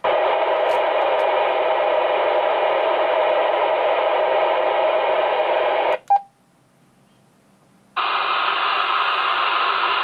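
Radio receiver static: the steady hiss of an open squelch from a transceiver's speaker, with no signal on the channel. About six seconds in, a button press on the small dual-band mobile transceiver gives a click and a short beep, the hiss stops, and it comes back about two seconds later.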